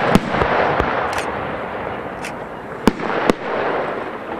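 Aerial firework shells bursting with sharp bangs: a quick cluster in the first second and two more about three seconds in, over a steady hiss between them.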